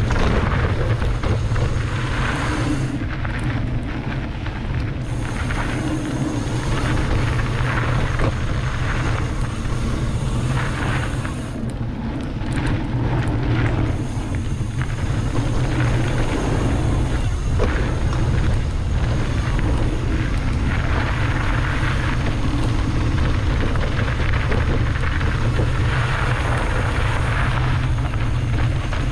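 Wind buffeting the microphone and tyres running over dirt as a mountain bike rides down a trail, a steady deep rumble with a few short knocks from bumps.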